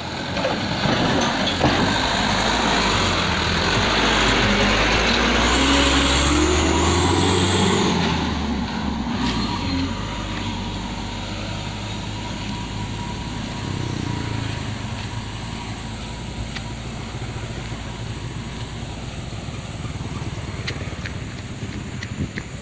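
Diesel engine of a heavily loaded Mitsubishi Canter truck working under load as it pulls away; its note rises over the first several seconds, is loudest around six to eight seconds in, then drops and runs quieter and steadier as the truck moves off.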